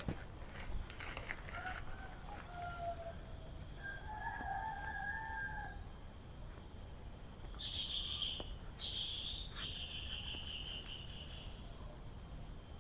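A rooster crowing, faint, a couple of seconds in, followed by a higher-pitched bird call from about eight to eleven seconds. Dry leaves crackle as they are handled at the start.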